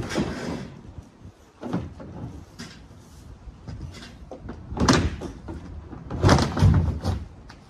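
Hollow plastic panels of a resin storage shed banging and clattering as they are knocked and worked loose: a few separate knocks, the loudest about five seconds in and again in a short run a second later.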